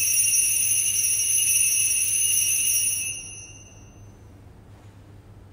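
Altar bells ringing steadily for the elevation of the host at the consecration, then stopping about three seconds in and dying away over the next second.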